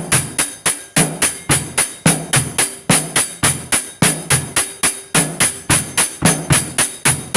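A steady, fast percussion beat: sharp, even hits about four or five a second, with a deeper thump every few hits.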